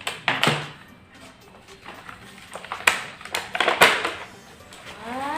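Plastic and cardboard toy packaging being handled and opened: several sharp crackles and taps, with pauses between them.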